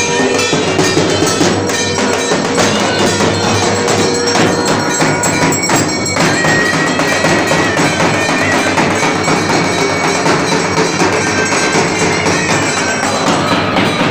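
Dhak drums beaten in a fast, continuous, loud rhythm, with metallic ringing over them.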